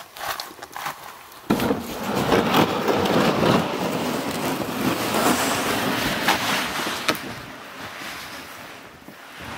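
Plastic sled dragged over snow: a scraping hiss that starts suddenly about a second and a half in and fades near the end as it is pulled away. A few light clicks come before it.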